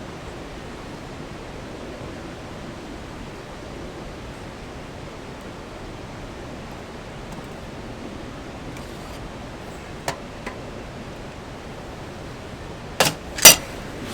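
Steady rushing of a nearby mountain stream. About ten seconds in come two light clicks, then near the end two sharp knocks half a second apart, the loudest sounds.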